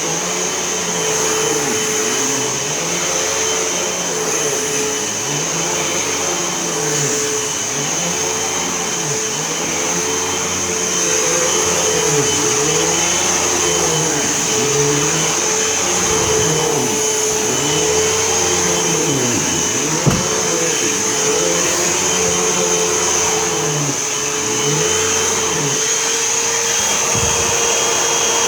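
Hoover Elite Whole House upright vacuum cleaner running steadily as it is pushed back and forth across the floor: a constant motor whine with a high steady tone, and a lower hum that swells and dips every second or two with each stroke. There is one short knock about 20 seconds in.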